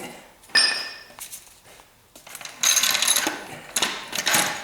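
Metal clanking: one sharp strike that rings briefly about half a second in, then a couple of seconds of metallic clattering, like steel tools and suspension parts knocking together.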